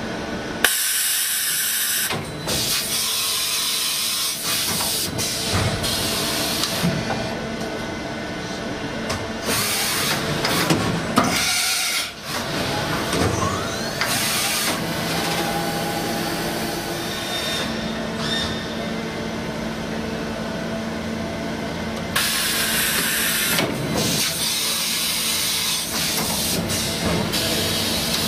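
Matsuura MAM72-25V five-axis machining centre running its automatic cycle: a steady motor hum and whine, broken by several loud bursts of hissing and a pitch glide near the middle.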